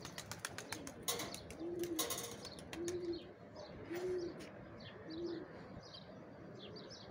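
Domestic pigeons cooing, a short low coo about once a second. Wings clap and flap in the first two seconds as a pigeon takes off close by, and small birds chirp from about two and a half seconds in.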